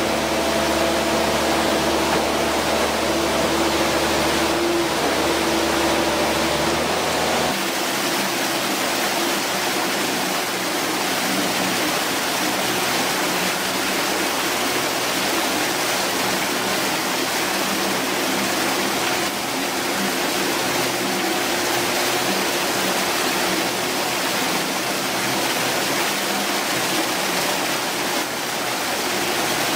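Rushing floodwater making an even, steady hiss. For the first seven seconds or so a walking excavator's diesel engine hums steadily underneath it, then cuts off abruptly, leaving only the water.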